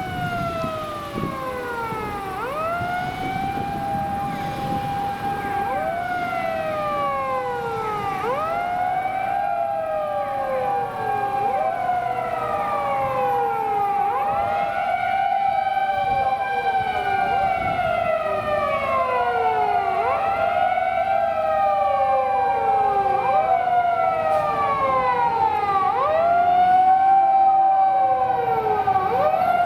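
Japanese fire engine (ladder truck) siren wailing on an emergency run: each cycle rises quickly, holds a steady tone, then slides down, repeating about every three seconds with several sweeps overlapping. It grows louder toward the end as the truck approaches.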